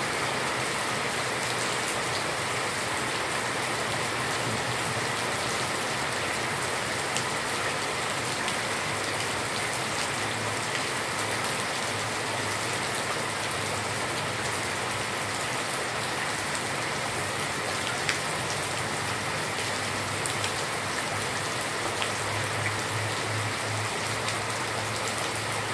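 Steady rain falling on a concrete yard, with now and then a sharper tick of a single drop close by.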